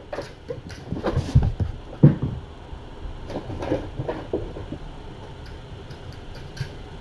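Irregular knocks, clicks and low thuds, densest in the first two seconds or so, then only a few faint clicks.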